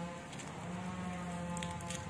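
A few light metallic clicks from a round aluminium airgun pellet tin being turned in the hands, near the end, over a steady held droning tone that breaks into long notes.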